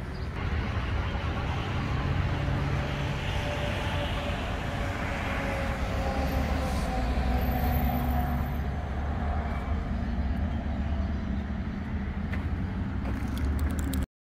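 Road traffic: a steady rush of passing cars' tyres and engines with a heavy low rumble. It cuts off suddenly near the end.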